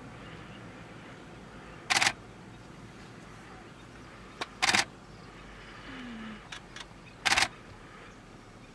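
Camera shutter firing three short bursts of frames, about two and a half seconds apart, with a few fainter single clicks between them.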